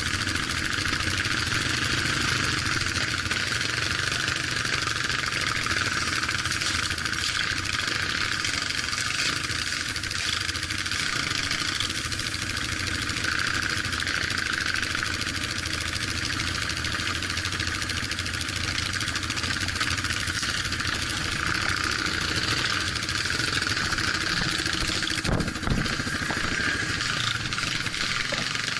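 An off-road vehicle's engine running steadily while driving over rough ground, with continuous road and drive noise. There is a single knock about 25 seconds in.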